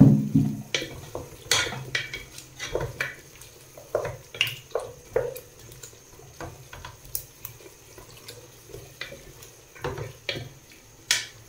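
Wooden spatula stirring potato chunks through thick masala in a cooking pot as they fry, with irregular knocks and scrapes against the pot about every half second to second.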